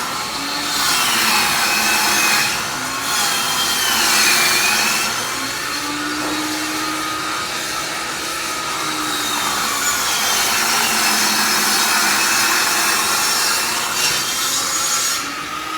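Power saw cutting through plywood: a loud, dense cutting noise with the blade's whine dipping and rising in pitch as it bites, easing off near the end.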